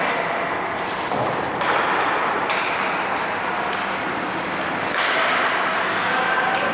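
Ice hockey play on a rink: a steady hiss of skate blades on the ice, broken a few times by sudden sharp knocks of sticks and puck.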